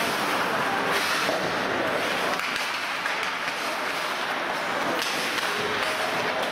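Ice rink sound during play: a steady hiss of skates on ice with occasional knocks of sticks and puck.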